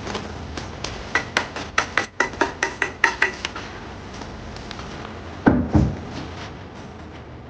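Kitchen utensils knocking: a quick run of about a dozen ringing taps, then two heavy thumps about five and a half seconds in.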